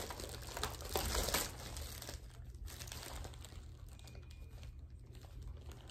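Plastic bag packaging rustling and crinkling as it is handled and opened, in irregular crackles that are busiest in the first second and a half and then settle to a softer rustle.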